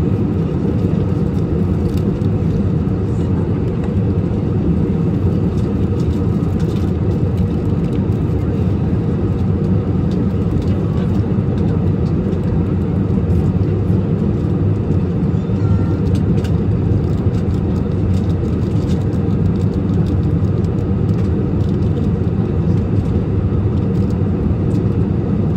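Steady airliner cabin noise in flight: an even, low rush of engines and airflow, with a few faint small clicks.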